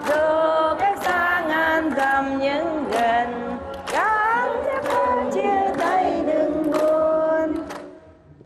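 Group of voices singing a Vietnamese song together with instrumental backing; the last line is held and fades out near the end.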